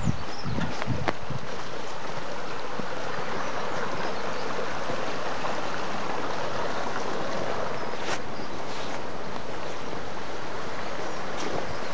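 Small woodland brook running steadily over stones, a continuous rush of water. A few low thumps come in the first second, and two short clicks come later.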